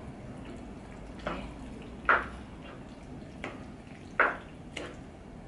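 Sauced penne being stirred and turned with a spatula in a nonstick frying pan: a few short scraping strokes against the pan, the two loudest about two and four seconds in, over a low steady background.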